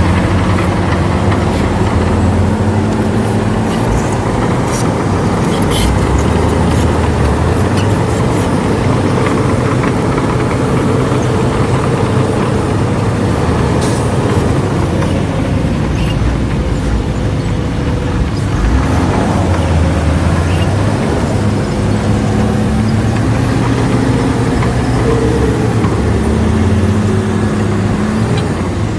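Heavy diesel earthmoving machinery running hard, the engine pitch rising and falling as it works.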